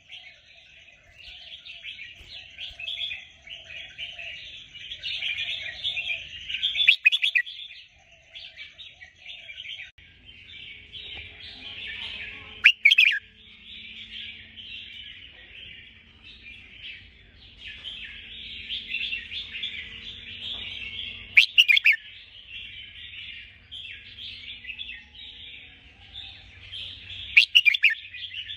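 Lure recording of the calls of the bird the uploader names 'ngabok jambul putih': a dense, unbroken chatter of chirps, with a sharp, louder call standing out four times.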